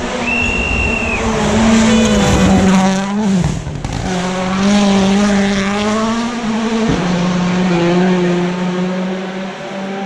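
Rally car engine running hard at high revs, with a short break in the engine note about three and a half seconds in before it pulls again. A short high whistle sounds in the first second.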